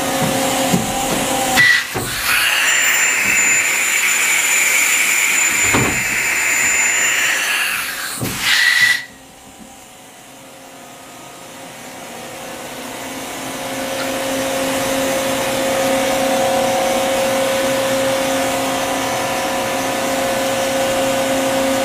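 Daewoo DHC400 horizontal machining center working through a pallet change. A loud hiss of air, with a short high note as it starts and stops, runs for about seven seconds and cuts off suddenly. Then a steady machine hum slowly builds and holds.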